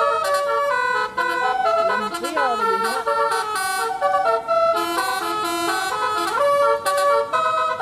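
Multi-tone 'telolet' air horn on an Indonesian bus playing a melody, its several notes sounding together and stepping from one pitch to the next every fraction of a second.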